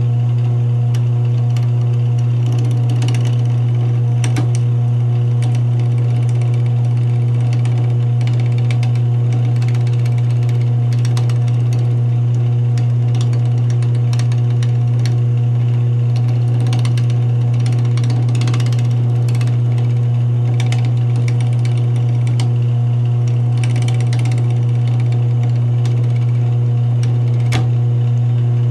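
Wood lathe motor running with a loud steady hum while a pool cue butt spins and a hand-held tool turns down its resin coating, with scattered scraping ticks from the cut. A sharp snap near the end as the tool catches the edge and chips a piece out of the coating.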